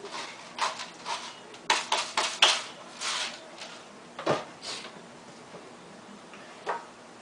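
Ground pepper shaken from a tin over a frying pan: a run of quick taps and rattles, then one louder knock against the pan or counter a little after four seconds in.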